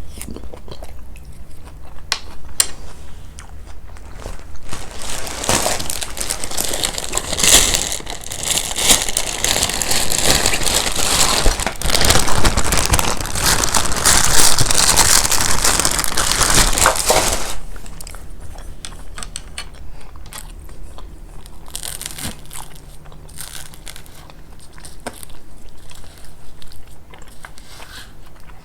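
Close-miked chewing and crunching of crisp, coarse Nabulsi kunafa, crackly and wet. A dense stretch of crackling fills the middle, then it eases into quieter, sparser chewing clicks near the end.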